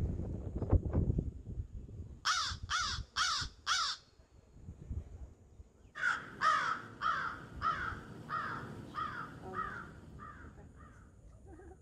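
A crow-like bird calling: four calls about half a second apart, then after a short pause a longer run of about ten calls that grow fainter. Wind buffets the microphone over the first two seconds.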